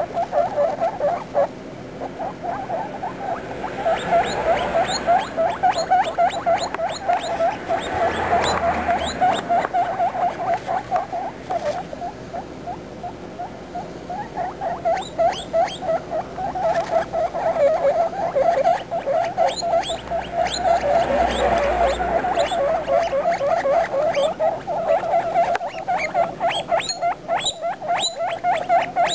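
Baby guinea pigs calling continuously: a dense, rapid stream of short squeaky notes from several animals, thickening in the second half.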